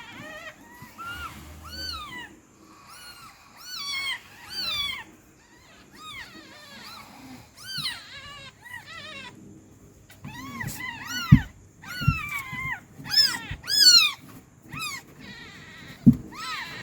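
Newborn kittens mewing: many short, high-pitched, rising-and-falling cries in quick runs, with a couple of soft bumps in between.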